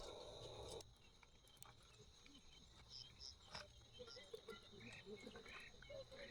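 Faint outdoor night sounds: a steady high insect drone with scattered short chirps and calls. A low hiss cuts off suddenly about a second in.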